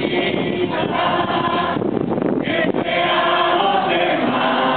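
A group of voices singing a hymn together.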